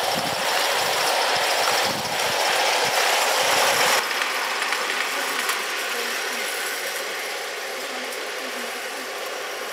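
Gauge 1 live-steam model of a BR Standard Class 4MT 2-6-4 tank locomotive running close by with a train, with rapid mechanical clatter and exhaust beats from the engine and wheels on the track. About four seconds in it drops suddenly to a quieter, steadier running sound.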